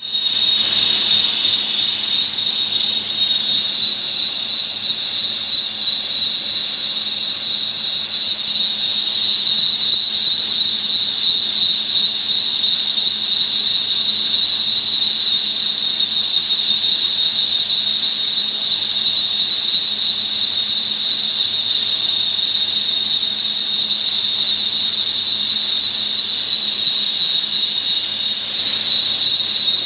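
Lathe turning metal, with a steady high-pitched squeal over a low steady hum from the machine.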